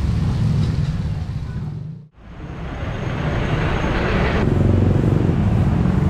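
Street ambience of traffic and background noise that fades out to near silence about two seconds in, then fades back in.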